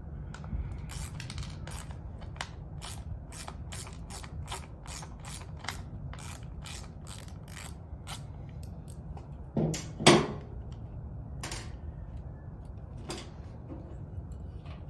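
Hand ratchet wrench clicking in steady strokes, about two or three clicks a second, as the bolts holding a float to a fuel pump are turned. About ten seconds in there are two louder knocks, followed by a few more single clicks.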